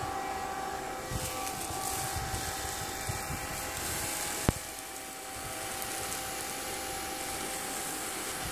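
Small handheld electric blower running steadily: a high motor whine over a rush of air. A sharp click about four and a half seconds in, after which it runs a little quieter.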